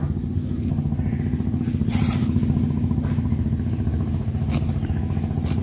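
An engine running steadily with a fast, even pulse, and three short scrapes as a hilsa fish is worked against a boti blade, about two, four and a half and five and a half seconds in.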